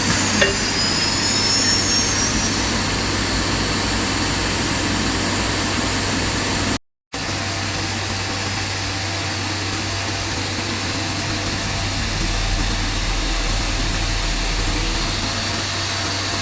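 CNC router running: a steady machine drone with a constant high whine, and a few high tones gliding in pitch during the first two seconds. The sound cuts out completely for a moment about seven seconds in.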